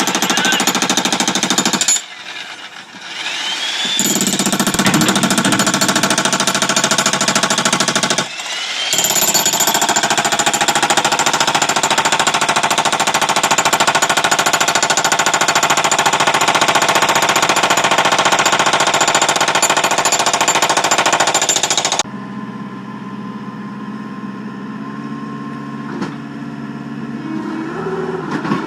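Bosch electric jackhammer hammering into concrete in three runs, with brief stops about two and eight seconds in, until it shuts off about 22 seconds in. After that a much quieter engine-like hum with shifting low tones remains.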